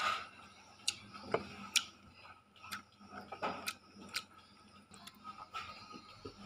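Irregular light knocks and clicks, a dozen or so at uneven spacing, as a ceramic plate is handled and carried about on a wooden plank floor.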